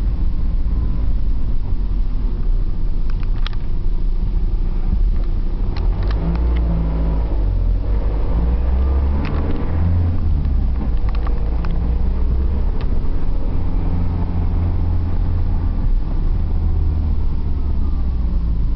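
Engine drone and road rumble inside a moving car. The engine note shifts in pitch around the middle as the car slows and moves off again, with a few short clicks over it.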